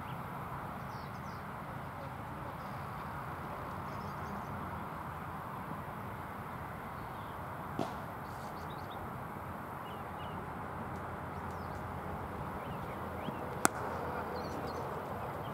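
Steady outdoor background noise with faint bird chirps, a small click about halfway and a sharp click near the end.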